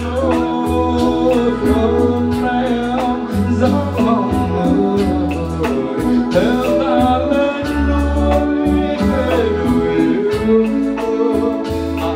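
Song music with a steady beat, a pulsing bass line and a lead melody of held notes.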